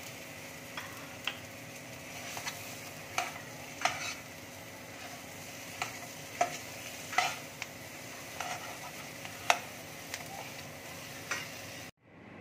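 Oil sizzling in a non-stick frying pan while a slotted spatula stirs and mashes boiled potato into fried onion and chilli, with irregular clicks and scrapes of the spatula against the pan. The sound cuts off abruptly near the end.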